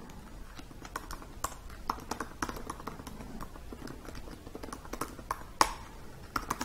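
Typing on a MacBook keyboard: irregular key clicks, with one louder keystroke about five and a half seconds in.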